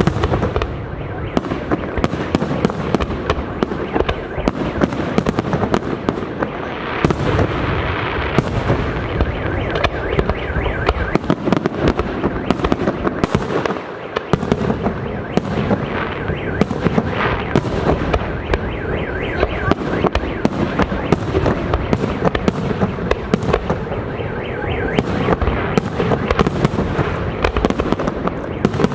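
Fireworks display: aerial shells bursting in a continuous rapid barrage of overlapping bangs, briefly thinning about halfway through.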